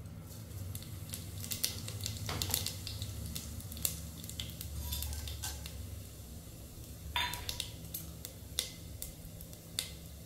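Metal spoon or spatula clinking and scraping against a cooking pan and utensils, with scattered sharp clinks over a low steady hum.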